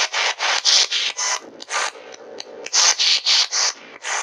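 Ghost-hunting app's spirit-box sweep: rapid chopped bursts of hissing static, about four a second, easing off around two seconds in. The uploader hears spirit voices saying 'sleep all day' in it.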